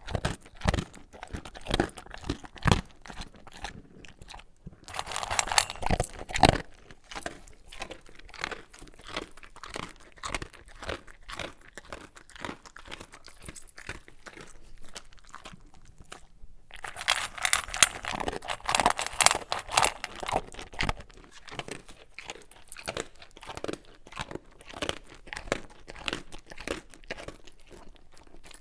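A dog chewing and crunching dry kibble: a run of sharp crunches, with denser, louder spells of eating about five seconds in and again around seventeen to twenty-one seconds in, and a short pause just before the second spell.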